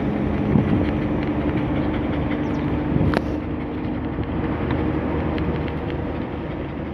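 Wind rushing and road noise from a moving car with the window open, over a steady low engine hum, with one short sharp click about three seconds in.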